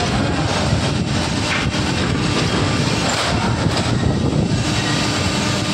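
Flatbed screen printing machine running with a loud, steady mechanical drone and rumble, the fabric moving along on its printing belt.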